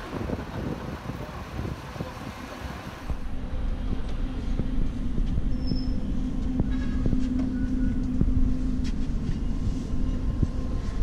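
A large vehicle's engine running with a steady low rumble and drone. About three seconds in, a hissing noise gives way abruptly to the louder rumble.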